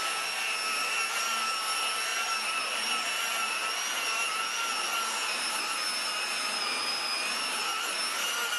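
A steady high-pitched machine whine over a hiss, holding one pitch without change.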